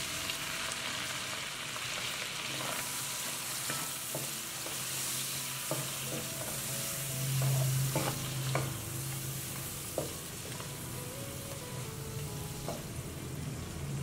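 Chicken frying and sizzling in a pan while it is stirred, with a utensil clicking against the pan several times.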